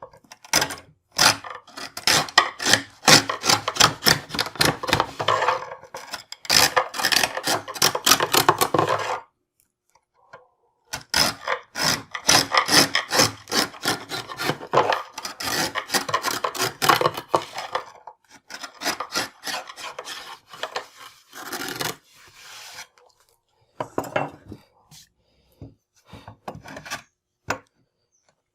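Hand tool shaving a wooden tenon face in quick, repeated scraping strokes. The strokes come in two long runs split by a brief pause about nine seconds in, then turn lighter and more spaced out in the last third.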